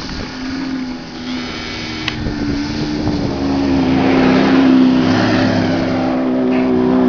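Hummer H2's V8 engine revving hard under load as it climbs a sand slope. The pitch rises about three seconds in and stays high. One sharp click about two seconds in.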